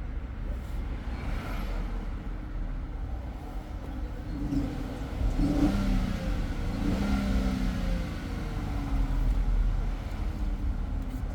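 A motor vehicle's engine running with a steady low rumble, growing louder with a wavering pitch from about four to nine seconds in.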